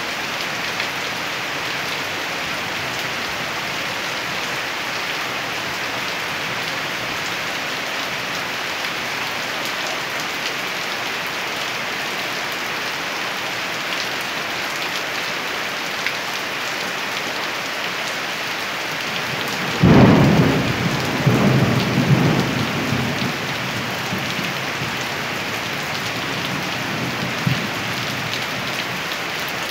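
Steady rain falling in an even hiss. About twenty seconds in comes a sudden loud thunderclap, the loudest sound here, rumbling on for about three seconds before the rain alone returns.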